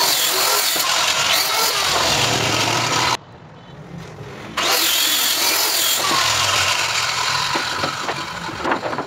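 Handheld electric circular saw cutting through a laminated plywood sheet, its motor whine wavering under load. It cuts off suddenly about three seconds in, starts again about a second and a half later, and eases off toward the end.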